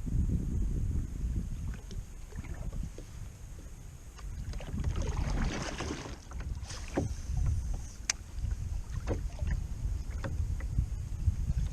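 Wind rumbling on the microphone aboard a kayak, with a rush of water splashing in the middle and a few sharp clicks and knocks after it.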